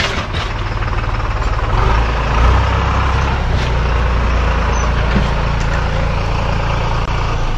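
Heavy machine's engine running steadily while it works, a deep continuous rumble, with a sharp click right at the start.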